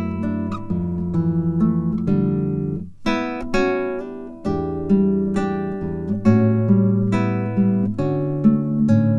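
Background music: acoustic guitar playing plucked and strummed chords that ring and fade, with a brief pause just before the middle.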